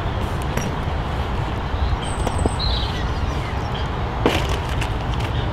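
A few light clicks and rustles of fishing tackle being handled as a tackle bag is opened and searched, over a steady low rumble.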